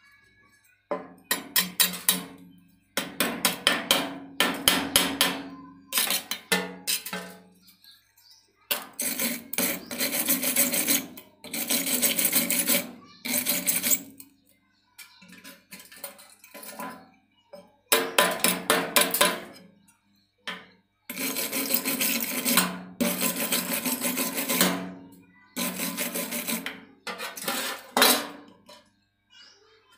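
A hand file scraping over steel weld beads in fast back-and-forth strokes, in bursts of a few seconds with short pauses, cleaning the slag off the welds; the metal rings faintly under the strokes.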